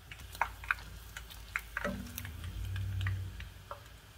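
Dried guajillo chilies frying in hot oil in a saucepan, giving off scattered, irregular small pops and crackles. A brief low hum comes in just after the halfway point.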